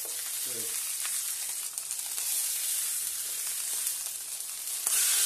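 Pieces of little tunny sizzling in a hot grill pan as they are turned over with a utensil, with a few light clicks. The sizzle grows suddenly louder near the end.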